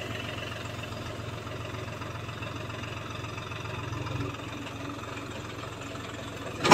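John Deere tractor's diesel engine running at low revs while the tractor edges forward with its tipping trailer raised, jerking to shake the load out; the engine note swells briefly about four seconds in. A single sharp knock right at the end.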